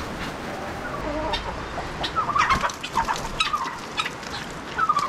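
Farmyard poultry calling: a run of short clucking calls that starts about a second in and comes several times in quick succession.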